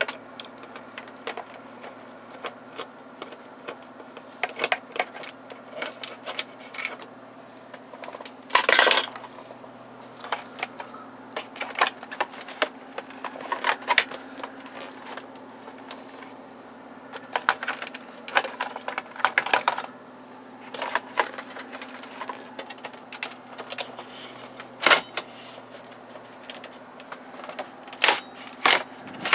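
Irregular clicks, taps and scrapes of a screwdriver working on the plastic instrument-cluster trim of a Chevrolet/Opel Captiva dashboard, with the hard plastic knocking as the trim is pried and lifted, over a steady low hum.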